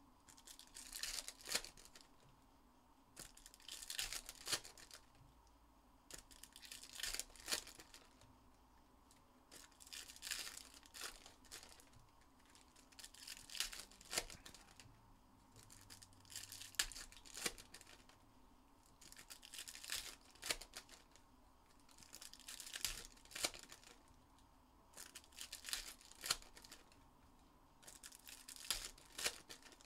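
Trading card packs' foil wrappers being torn open one after another, a crisp rip and crinkle about every three seconds.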